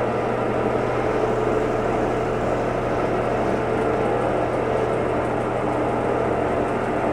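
Consul Facilite 11 kg (CWG11) washing machine running with a loud, steady noise over a low hum, which the owner takes for a blown drum bearing.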